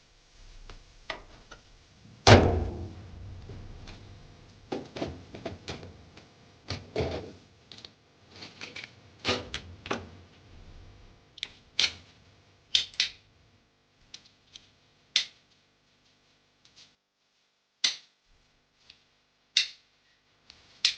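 Hands working on a washing machine during a repair: a heavy thunk with a short ring about two seconds in, then irregular clicks, knocks and light rattles of panels and parts being handled.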